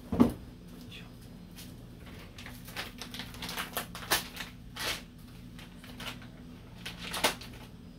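Handling noise from motorcycle brake-lever parts and tools: a sharp knock just after the start, then a run of small clicks and taps, with another pair near the end, over a steady low hum.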